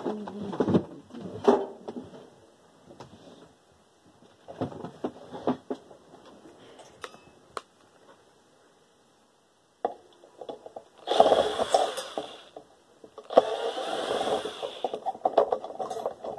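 A few seconds of clicks and knocks from parts and tools being handled, then a power drill-driver runs in two short bursts, each about a second and a half long, backing screws out of a desk fan's stand.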